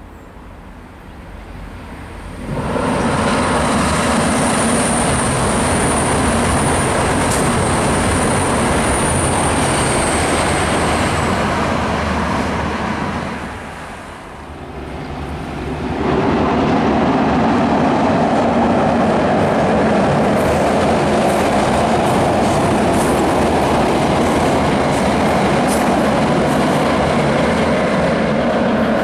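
A V/Line VLocity diesel railcar set runs across a steel girder rail bridge with a loud rumble and a thin, steady high squeal over it, fading away about twelve seconds in. A few seconds later a second train, hauled by T-class and P-class diesel-electric locomotives, crosses with a steady, heavy rumble until the end.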